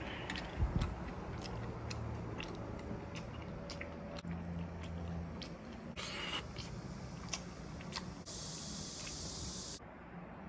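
Close-up mouth sounds of someone chewing cocktail sausages, lips smacking, with light sharp clicks of metal chopsticks on a stainless steel tray.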